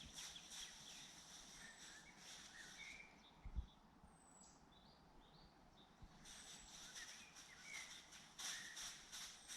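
Faint birdsong from several small birds: rapid high trills and chirps with short whistled notes, and a soft low thump about three and a half seconds in.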